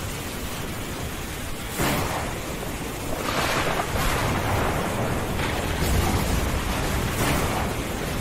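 Storm sound effect: a steady rushing noise like heavy rain and wind, swelling several times with thunder-like rumbles.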